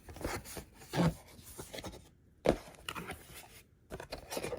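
Cardboard box and packaging being handled as the box is opened: irregular rustling and scraping with a few short knocks, the sharpest about a second in and again about two and a half seconds in.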